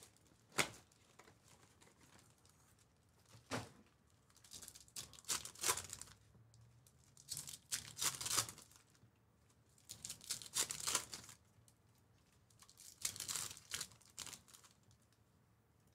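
Foil wrappers of baseball card packs being torn open and crinkled in the hands, in short bursts every second or two.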